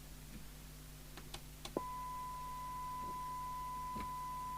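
Steady 1 kHz test tone from the CB radio's speaker, cutting in about two seconds in as the squelch opens on the signal generator's signal, and cutting off right at the end. A few faint clicks come before it, and a low steady hum runs underneath.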